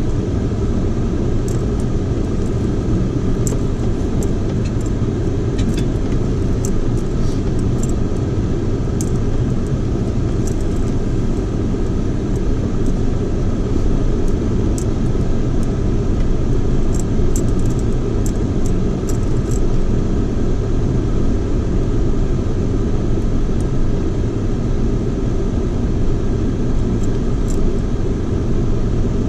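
Vehicle driving slowly over a rough dirt road strewn with fist-sized rocks: a steady low rumble of engine and tyres, with scattered sharp ticks and rattles, most of them in the first twenty seconds.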